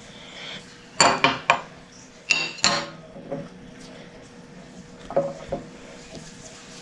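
A utensil clinking and knocking against a bowl, a quick run of sharp clinks followed by two more a few seconds later, as cornstarch is scooped into and stirred through the melted gummy-bear mixture.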